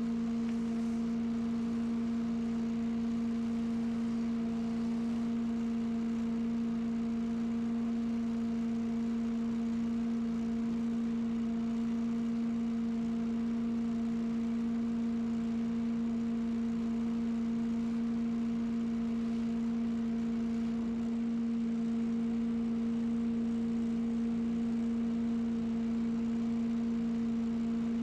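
Lawn equipment running at a constant speed, a steady hum with no change in pitch or loudness.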